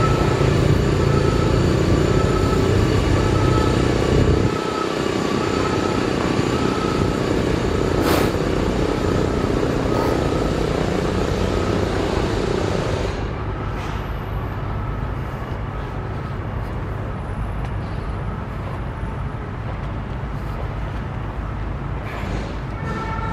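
Steady city road traffic noise, louder with a deep rumble for the first four or five seconds, then a lower, duller hum.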